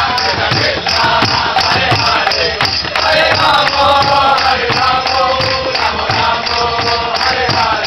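Hare Krishna kirtan: a group singing the maha-mantra together over percussion that keeps a fast, steady beat.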